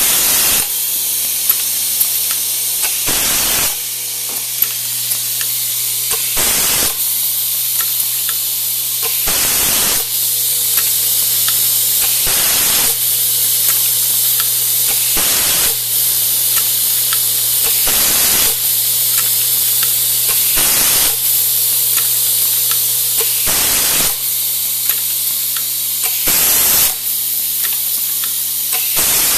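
Automatic christmas-tree fastener feeder with a vibratory bowl running: a steady low hum under a constant high hiss of compressed air. About every three seconds comes a short, loud burst of air as the pneumatic feed and insertion cylinder cycles to push in a fastener.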